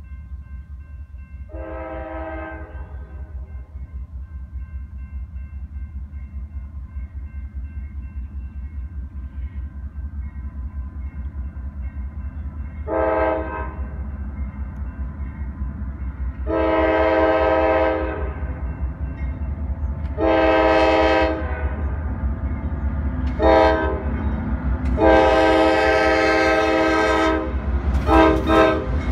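CSX freight locomotive's air horn sounding for the grade crossing: an early long blast, then a series of long and short blasts that grow louder as the train approaches. A grade-crossing signal bell rings steadily underneath, and the rumble of the train rises near the end as the locomotives reach the crossing.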